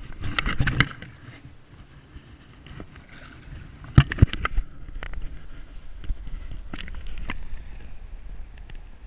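Shallow river water splashing and sloshing around hands holding a spring salmon as it is released, with a burst of splashing in the first second. Two sharp knocks about four seconds in are the loudest sounds, with a few fainter clicks later.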